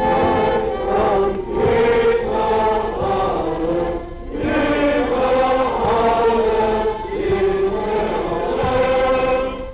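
Massed voices singing together in chorus, a crowd or choir carrying a slow, hymn-like song in long phrases with short breaths between them, on an old 1930s newsreel recording.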